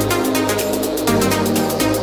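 Electronic dance background music with a steady, fast beat and held synth notes.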